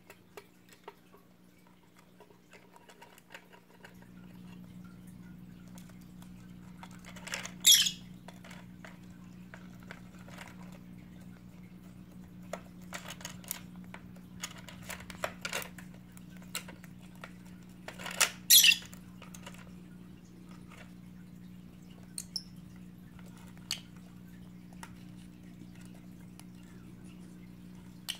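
Lovebirds moving about a wooden play stand and its plastic toys, making scattered small taps and clicks. Two short, loud squawks come about 8 s and 18 s in, with a couple of fainter calls later.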